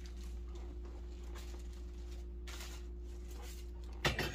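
Faint, scattered rustles from unpacking a flocked artificial Christmas tree and its packing in a cardboard box, over a steady low hum. A sudden louder rustle comes right at the end.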